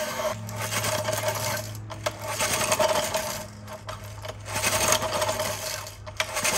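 Small Briggs & Stratton 6B-SF single-cylinder four-stroke engine being pulled over by hand with its spark plug out, in several pulls with short breaks between them, to check for spark.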